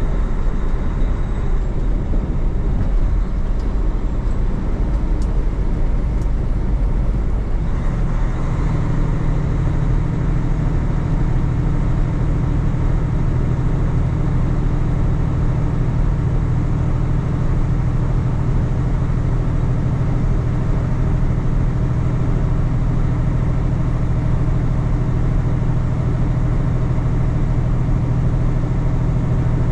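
Semi truck's diesel engine running steadily at highway speed with road noise, heard from inside the cab. The low engine note shifts and grows stronger about eight seconds in.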